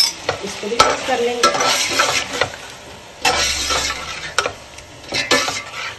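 Metal slotted spatula stirring yogurt into frying beef in a stainless steel pot, in irregular scraping strokes with sharp clinks of metal against the pot, over the sizzle of the meat in oil.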